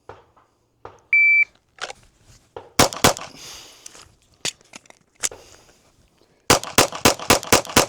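A shot timer beeps once. A Glock pistol then fires two quick shots, a couple of lighter knocks follow during the reload, and it finishes with a fast string of about eight shots.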